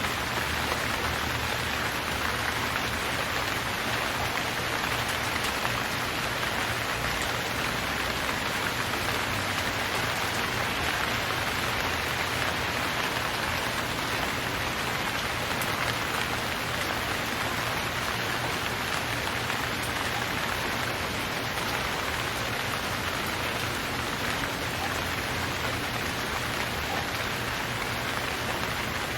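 Steady rain falling on surfaces, an even hiss of many raindrops without let-up.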